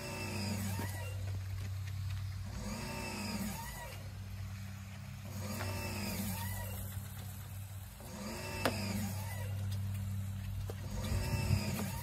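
Steady low hum of a running motor. A short squeaky sound repeats about every three seconds over it.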